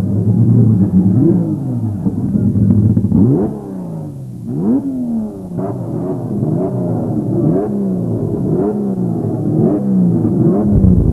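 Turismo Carretera race car engines being revved with repeated throttle blips, the pitch swinging up and back down about once a second.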